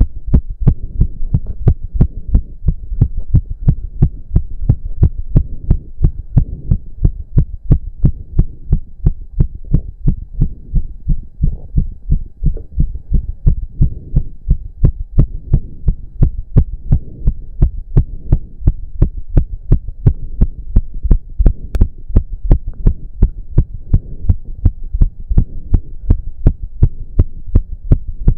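A man's heart pounding very fast during intense cardio exercise, at about three beats a second, steady and even.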